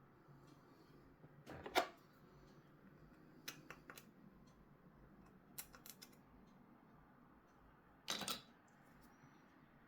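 Hands working with small hard plastic parts: two short scraping rustles, about a second and a half in and again near the end, with little groups of sharp clicks between them.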